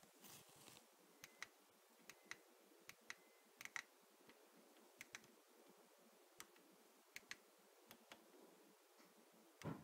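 Faint clicks of the Popcorn Hour C200 media player's front-panel buttons being pressed one after another, about a dozen, several in quick pairs. A soft bump near the end.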